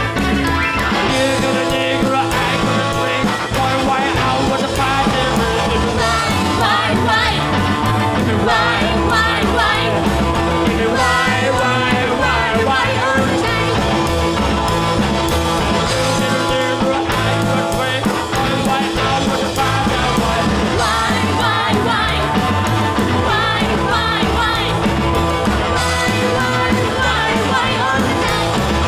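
Background music: a song with a singing voice and a steady beat.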